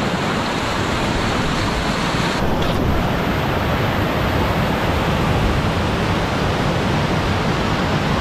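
Steady rush of whitewater rapids on the South Fork Snoqualmie River.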